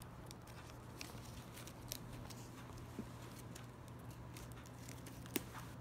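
Faint rustling and light taps from small hands handling a cardboard gift box with a plastic ribbon bow, with one sharper click a little after five seconds, over a steady low hum.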